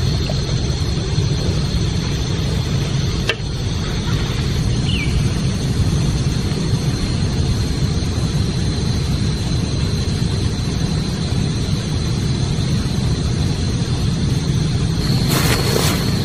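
Outdoor ambience: a steady low rumble with a thin, steady high whine over it, a single click a few seconds in, and a short rustling burst near the end.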